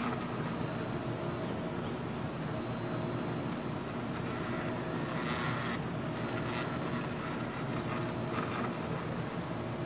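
Steady machine hum with a few steady tones as the 3D-printed rack-and-pinion Z-axis of a laser engraver is driven up and down, with the laser module's cooling fan running. A brief louder rasp comes about five seconds in, with fainter ones later.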